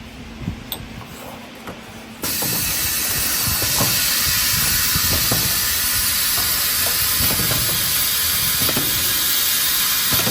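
Four-nozzle pneumatic perfume filling machine running in automatic: a loud, steady hiss of air comes in abruptly about two seconds in, with light knocks scattered through it.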